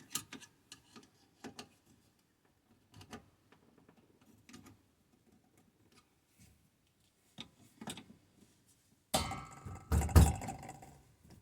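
Scattered small clicks and taps of hands and a tool working on the wiring of a water-pressure switch, then a louder stretch of rustling and knocking handling about nine seconds in.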